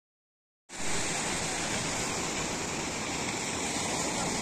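Sea surf breaking and washing against a concrete tetrapod breakwater: a steady wash of waves that cuts in abruptly about a second in.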